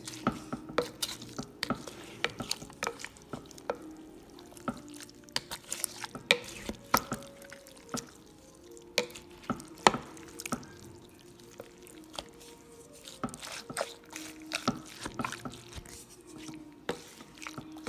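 A meat mallet mashing and stirring wet ground turkey and vegetables in a crockpot: irregular knocks and clicks of the utensil against the pot, with wet squelching of the juicy mixture.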